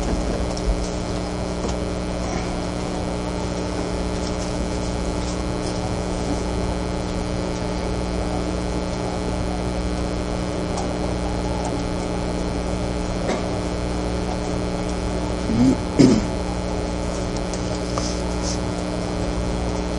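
Steady electrical mains hum from the lecture's microphone and sound system, with a couple of short faint sounds about sixteen seconds in.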